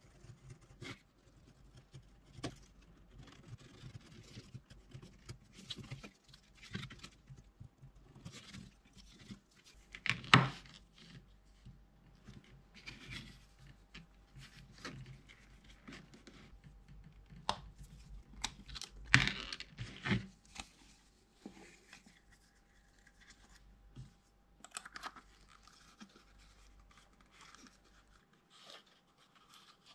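Hand leatherwork: a pointed hand tool scratching along leather and cut leather pieces shuffled and handled on a work mat, an irregular run of scratches, rustles and small clicks. A few sharper knocks stand out, the loudest about ten seconds in and around nineteen seconds.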